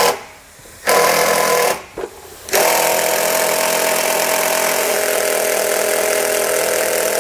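Cordless drill driving a self-tapping screw into a very thick metal trailer frame rail, the motor whining under load. A short run about a second in, then a long steady run from about two and a half seconds in.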